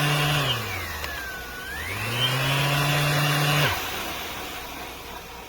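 Electric random orbital sander motor running with a whine: its pitch dips and climbs back up about two seconds in, then the motor cuts off a little after halfway, leaving a fading hiss.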